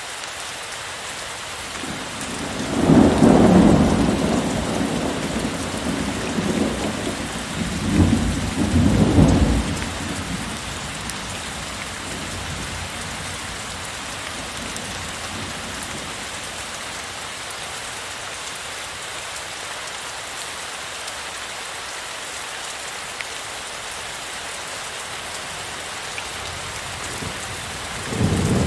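Heavy rain falling steadily, with two deep rolls of thunder in the first ten seconds, the second in two swells, and another roll starting near the end.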